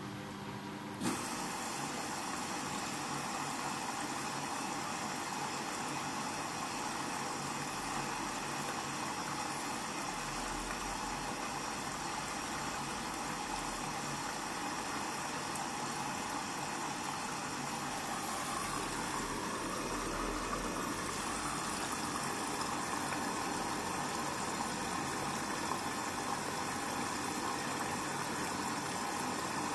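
Hoover washing machine in its fast spin, the drum whirring steadily. The sound steps up sharply about a second in. A low rumble comes and goes in the middle.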